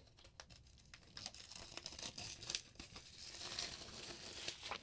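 Clear plastic film being peeled and pulled away from a cardboard box: faint crinkling and tearing with small crackles, starting about a second in.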